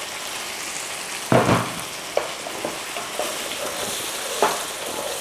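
Curry paste sizzling steadily in a hot frying pan as a little water is poured in, then a wooden spatula stirring it, with a loud knock against the pan about a second in and lighter scrapes and taps after.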